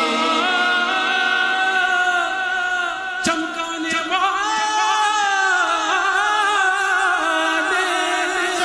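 Men singing a naat (Urdu devotional song) into microphones, unaccompanied, in long held notes with wavering ornaments.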